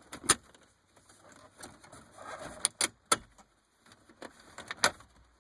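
Plastic dashboard trim panel being pulled off, its friction-fit clips letting go in four or so sharp clicks and snaps, with plastic scraping and creaking between them.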